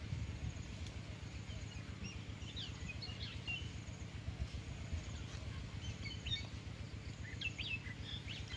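Small birds chirping: short, quick high notes in two bursts, a couple of seconds in and again near the end, over a low steady rumble.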